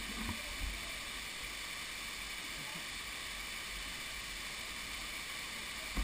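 Steady rushing hiss of a waterfall pouring down a rock cliff, with a few low thumps in the first second.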